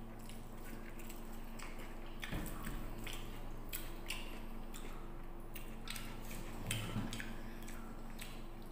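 A man eating rice and curry with his hand close to the microphone: chewing with many small wet mouth clicks and smacks, over a steady low hum.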